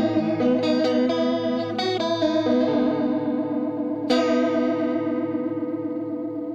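Overdriven electric guitar through a Bugera 333XL tube amp with the TC Electronic Plethora X3's chorus on: a few picked notes, then a chord struck about four seconds in and left to ring, wavering with the chorus as it fades.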